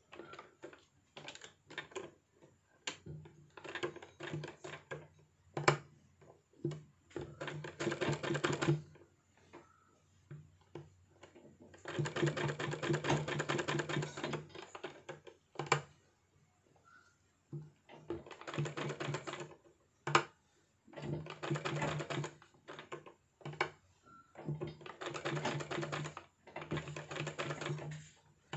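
Sewing machine stitching in short stop-start runs: about six bursts of fast, even needle rattle, each one to two and a half seconds long, with single clicks and fabric handling between them.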